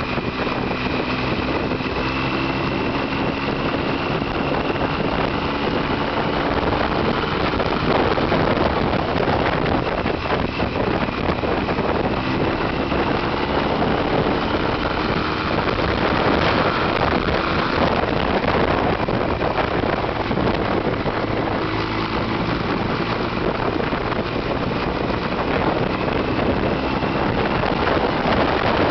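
Motorcycle engine running at road speed under heavy wind rush on the microphone. Its note rises and falls gently.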